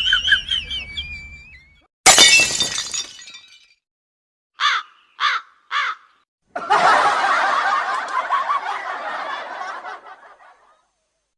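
A run of separate comedy sound effects. A sudden crash like something breaking dies away, then come three short squeaky notes in quick succession, then a noisy sound of about four seconds that fades out.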